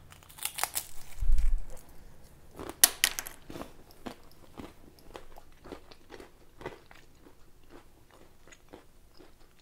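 A bite into a crisp cracker topped with liver sausage spread, with a few loud crunches and a dull low thump in the first seconds. Then steady crunchy chewing that grows fainter.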